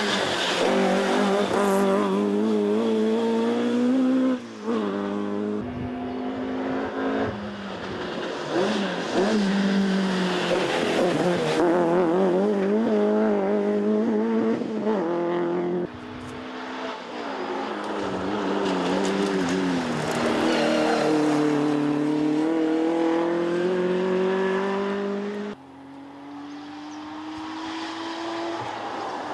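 Historic rally cars passing one after another at full throttle, among them a Ford Escort Mk2 and a Porsche 911. Each engine's note rises steeply and drops back at every gear change. The sound breaks off abruptly each time one car gives way to the next.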